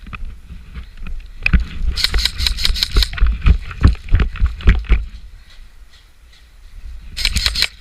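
Two short bursts of rapid sharp cracks from airsoft gunfire, one about two seconds in and a shorter one near the end, with heavy thumps close to the microphone between them.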